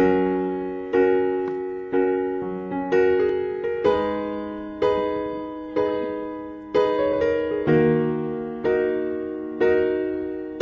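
Background piano music: chords struck about once a second, each fading away before the next.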